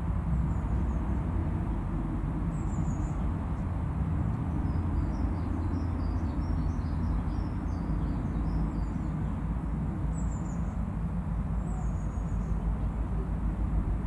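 Steady low rumble with faint, high-pitched bird chirps scattered through it, a cluster of quick short notes in the middle and a few single chirps near the end.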